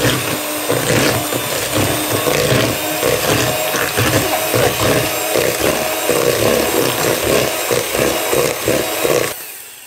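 Russell Hobbs electric hand mixer running, its beaters working through a thick cookie dough of creamed butter, sugar and egg in a plastic bowl, with a fast uneven pulsing as the beaters drag through the mix. It cuts off near the end.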